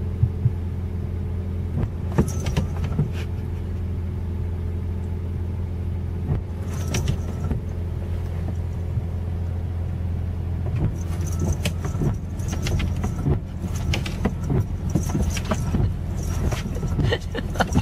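Car engine idling, heard from inside the cabin as a steady low hum, with the windshield wipers sweeping and scattered clicks and light knocks, more of them in the second half.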